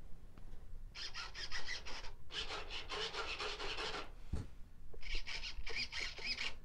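Rubbing, rustling noise close to the microphone in three spells of a second or two each, with short gaps between them.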